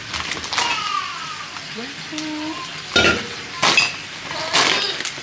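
Rummaging in a cloth tote bag of groceries: plastic snack packaging rustling and crinkling in several short bursts, the loudest about three seconds in.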